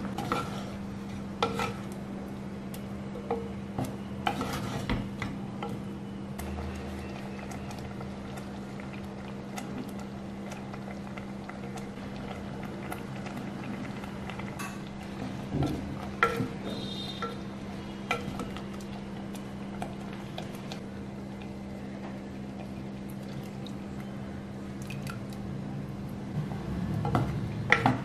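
A wooden spoon stirring curry in a clay pot, with scattered knocks and scrapes against the pot over a steady low hum. The stirring grows busier near the end.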